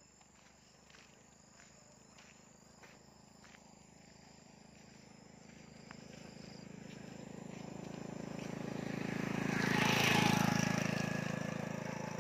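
A small motorcycle's engine gets steadily louder as it comes up and passes close by about ten seconds in, then begins to fade as it rides away.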